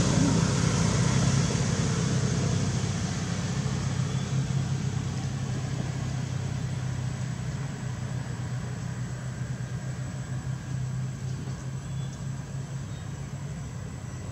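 A motor vehicle's engine running with a steady low hum, slowly fading away.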